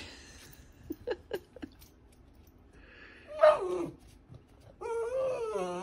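Schnauzer puppy whining, begging for presents out of reach: a short whine falling in pitch about three and a half seconds in, then a longer wavering whine near the end. A few light clicks come in the first two seconds.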